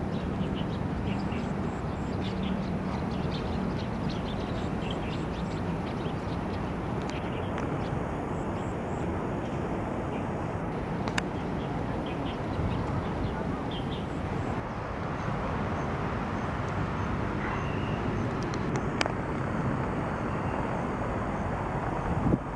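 Steady city park ambience: a constant low rumble of surrounding traffic, with faint high bird chirps scattered through the first half.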